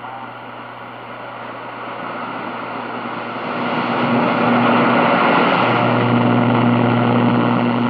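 Shortwave static hiss from the loudspeaker of a Hallicrafters S-20R Sky Champion receiver as its bandspread dial is tuned between stations. The hiss gets louder about halfway through, and a low hum comes up strongly near the end.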